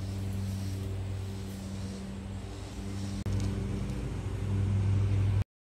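Steady low mechanical hum with a pitched drone. It breaks off for a moment a little past halfway, comes back louder, then stops dead near the end.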